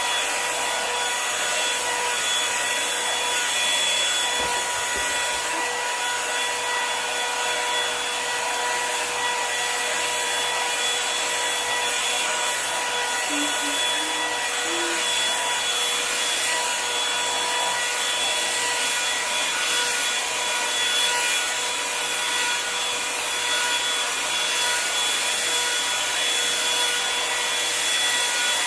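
Revlon One-Step paddle hair dryer and styler running on its high setting: a steady motor whine over rushing air.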